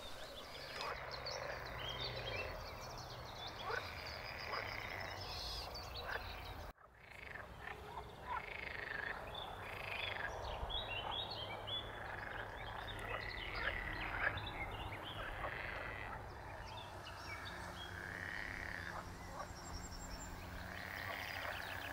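Frogs croaking at a pond, many short calls overlapping, with a brief break in the sound about seven seconds in.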